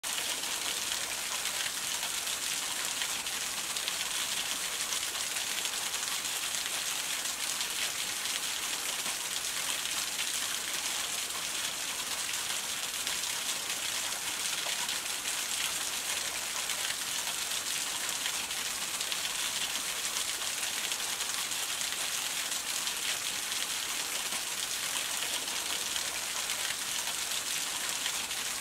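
Steady patter of falling water, an even bright hiss like rain on foliage, with no pauses or changes.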